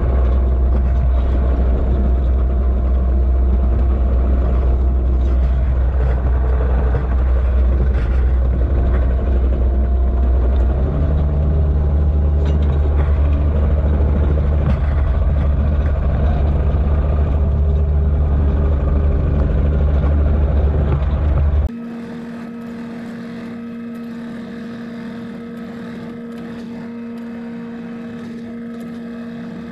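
John Deere 50G compact excavator's diesel engine running from inside the cab as the machine travels, a loud, steady low rumble whose pitch shifts about a third of the way in. About two-thirds of the way through, it drops abruptly to a quieter, steady hum.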